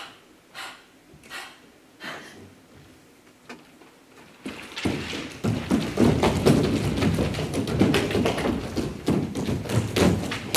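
Dancers' feet thudding and tapping on a stage floor: a few separate steps at first, then from about four and a half seconds in a dense, rapid patter as several dancers run and stamp across the floor together.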